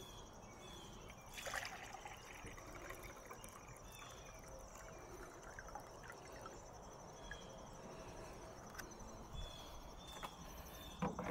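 Water being poured from a plastic container into a glass Pyrex measuring cup: a faint trickle and splash. It is the water a methanol injection nozzle sprayed during a flow test, being measured. There are light handling knocks about a second and a half in and near the end.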